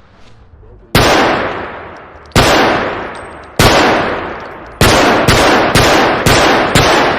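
Glock 17 9 mm pistol firing: three single shots over a second apart, then a quicker string of five shots about half a second apart, each shot followed by a long echoing decay.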